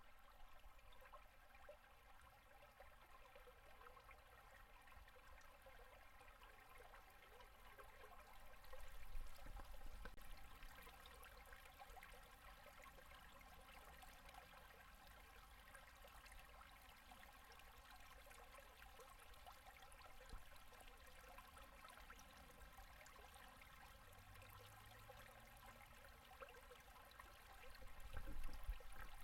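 Faint running water of a shallow, low-flow winter river gurgling over and under its ice, swelling louder about nine seconds in and again near the end.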